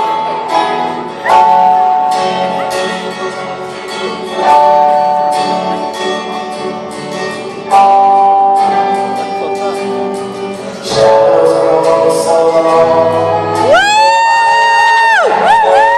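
A live band playing a song in a large hall, with guitar chords that change every three seconds or so. Near the end a high voice slides up and holds a long note.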